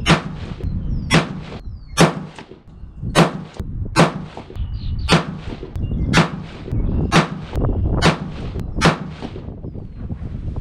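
224 Valkyrie bolt-action rifle firing a ten-shot ladder test of 77-grain Sierra MatchKing loads: ten sharp shots roughly a second apart, each with a short ringing echo.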